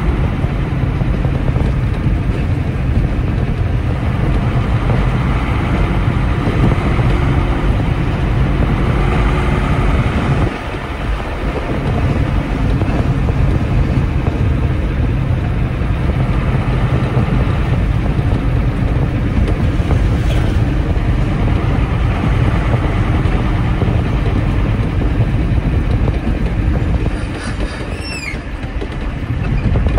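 Diesel engine of a freshly overhauled Mercedes-Benz 1417 truck running while driving, heard from inside the cab. Its note dips briefly about ten seconds in and again near the end.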